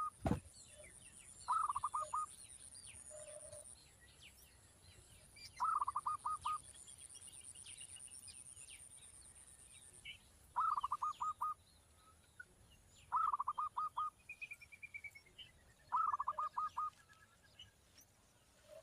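A bird calling in short bursts of four or five quick notes, repeated about every two to five seconds, with faint chirps between bursts. A steady high-pitched whine runs through the first half and stops about halfway.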